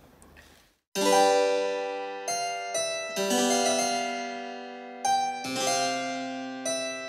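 Music: a short tune of struck keyboard notes and chords, each ringing and fading, beginning about a second in.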